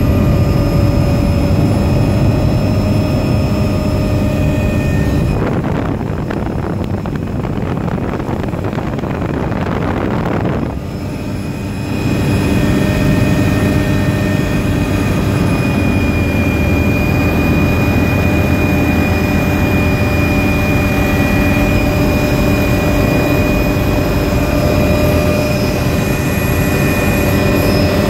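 Helicopter engine whine and rotor noise heard from inside the cabin, steady with several held tones. About five seconds in, the tones fade under a rushing noise for about six seconds, then return.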